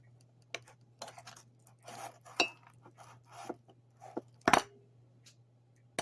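A metal knife scraping mashed avocado off a tablespoon into a mug, with scattered scrapes and clinks of metal on the spoon and the mug rim, and one louder clink about four and a half seconds in.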